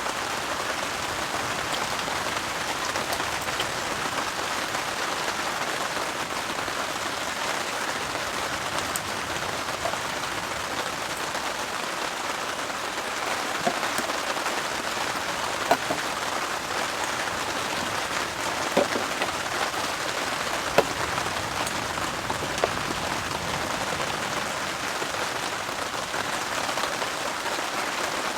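Steady rain falling on a heavy-duty tarp overhead, with scattered louder single drops.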